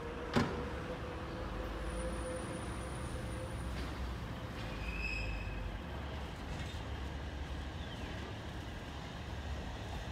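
Alishan Forest Railway train running along the track: a steady low rumble, with one sharp knock just after the start.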